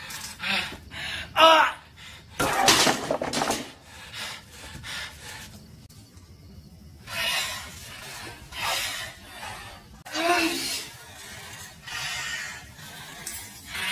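A man breathing hard and strained, with a few short groans of effort.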